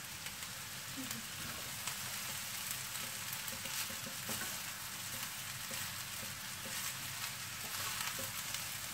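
Rice and vegetables sizzling on full flame in a non-stick kadai while being stirred and tossed with a plastic spatula; a steady frying hiss with light scrapes and taps of the spatula.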